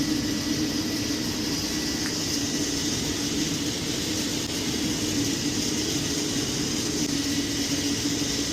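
Steady drone of running boiler-room machinery, an oil burner and its blower fan: a constant low hum over an even rushing hiss, unchanging throughout.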